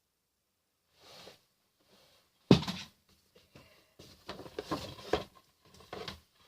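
Box and plastic game cases being handled: a single sharp knock about two and a half seconds in, then a run of smaller clicks, taps and rustling.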